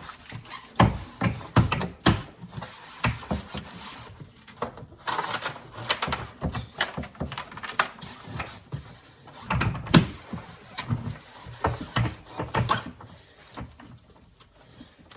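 A sponge scrubbing a soapy plastic freezer tray in a kitchen sink: irregular rubbing strokes and sharp knocks of the tray against the sink.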